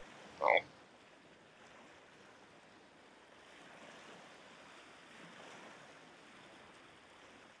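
Faint, steady water ambience of a pond, swelling a little midway, with a short rising squeak about half a second in.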